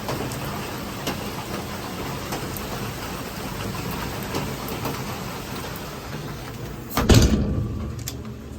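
Heavy rain pouring down in a steady hiss. About seven seconds in comes a loud, low thump lasting under a second, after which the rain sounds quieter.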